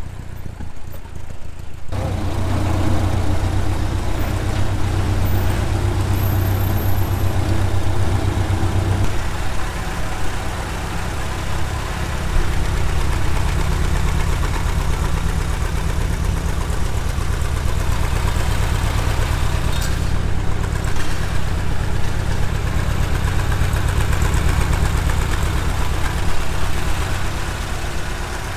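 Ford Model A four-cylinder flathead engine running at a steady idle with an even, regular firing beat; its note shifts slightly about nine seconds in.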